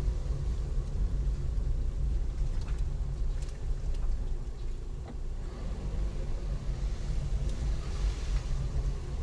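A car driving: a steady low rumble of engine and road noise, with a few faint clicks.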